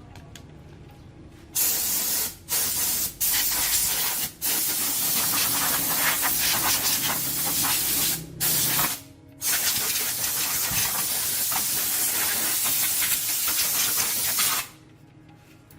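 A pressurised spray hissing in long bursts, released briefly about five times before it stops near the end.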